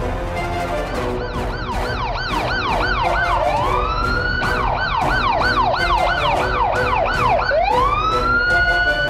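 Police siren over background music. From about a second in it gives a fast yelp of rising-and-falling sweeps, about three a second. Twice this breaks into a slower rising wail, once near the middle and again near the end.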